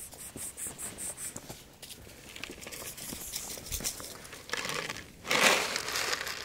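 Dry cat kibble rattling in a plastic jug and pouring out onto pavement, a loud rustling rush lasting about a second that starts some five seconds in, after a stretch of soft scattered clicks.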